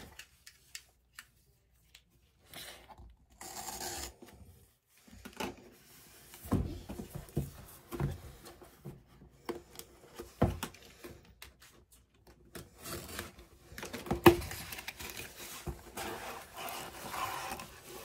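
Packaging being handled and opened: irregular rustling and crinkling with scattered light taps and knocks, the loudest a sharp knock about fourteen seconds in.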